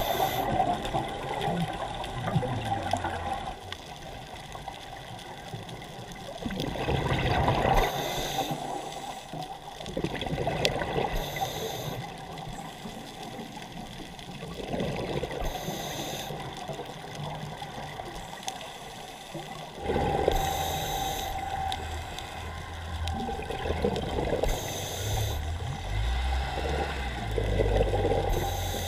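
Underwater sound from a camera on a scuba dive: a steady wash of water noise, with bursts of exhaled scuba regulator bubbles about every four seconds.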